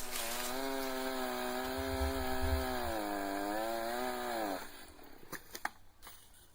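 Two-stroke chainsaw running at high speed, its pitch sagging and recovering, then dropping and dying away about four and a half seconds in. A few faint knocks follow.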